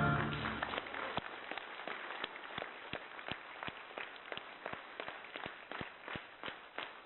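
Audience applauding at the end of a song, the last of the music dying away in the first second. The clapping soon falls into rhythmic clapping in unison, about three claps a second, and slowly grows quieter.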